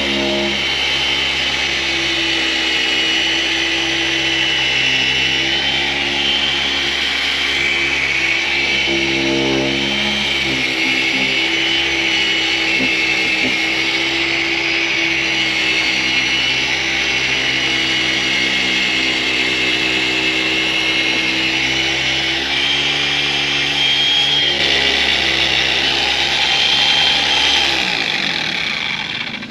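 Dual-action polisher running steadily at speed 4.5 with a foam pad, polishing a car headlight lens, then shutting off near the end.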